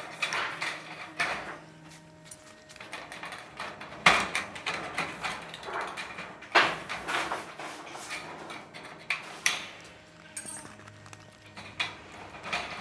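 Tin snips cutting thin Colorbond sheet-steel barge capping flashing in a run of short snips, with the sheet rattling and flexing in the hand. The sharpest cuts fall about four seconds in, again around six and a half seconds, and near nine and a half seconds.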